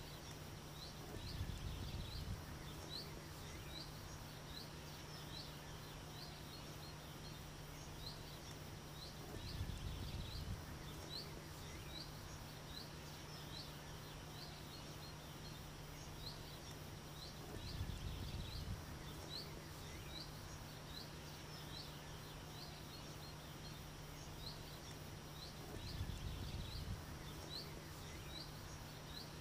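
A small bird calling over and over with short, high chirps, about one or two a second, over a faint steady hum. A low rumble swells briefly four times, about every eight seconds.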